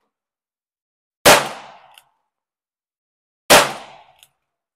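Two .22 Long Rifle shots from a Ruger New Model Single Six revolver, about two seconds apart, each a sharp crack that dies away over about half a second. A faint click follows each shot.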